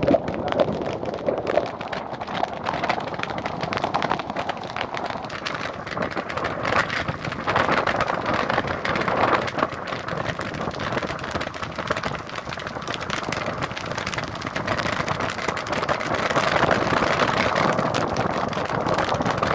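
Steady rain: a dense hiss full of fine drop ticks, growing a little louder near the end.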